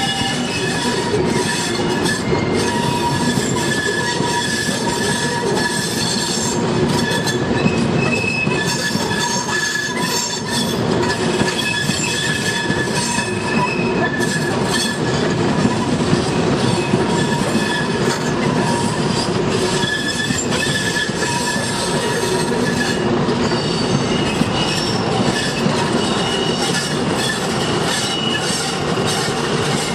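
InterCity 125 HST train's Mark 3 coaches rolling slowly round a tight curve, the wheel flanges squealing on the rails in high tones that come and go, over a steady rumble with scattered clicks from the wheels on the track.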